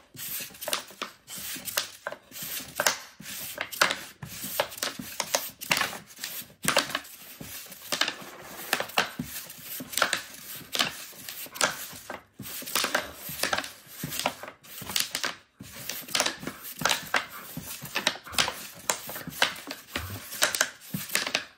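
Wooden sling-puck game in rapid play: quick, irregular clacks of wooden discs flung by the elastic band, knocking into each other and against the wooden board's walls, several a second.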